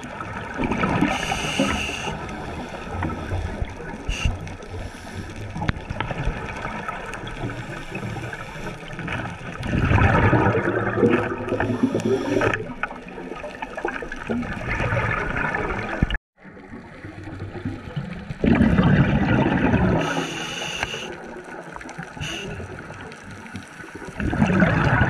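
Scuba diver breathing through a regulator underwater: a bubbling rumble of exhaled air every several seconds, with a hiss of the regulator on the in-breaths, over a steady underwater hum. The sound drops out briefly about two-thirds of the way through.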